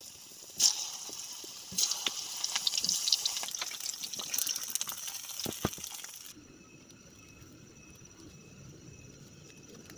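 Rain pattering and splashing with many sharp ticks for about six seconds, then cutting off abruptly to a quieter low rumble.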